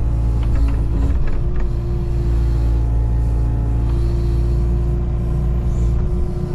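Kubota KX019-4 mini excavator's three-cylinder diesel engine running steadily under load, with a steady hydraulic whine as the boom and bucket work, heard from inside the operator's cab.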